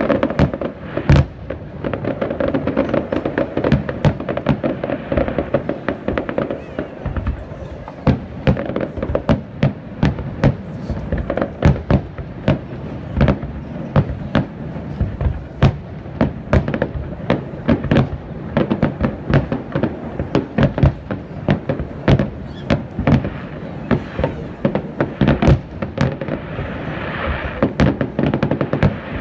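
Aerial fireworks display: shells bursting in a rapid, uneven string of bangs, several a second, with crackle between them.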